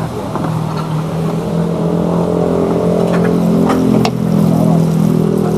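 A motor vehicle's engine running close by, a steady hum that strengthens and wavers slightly in pitch, over the sizzle of food frying in a wok on a charcoal stove. A few sharp metallic clicks come around three to four seconds in.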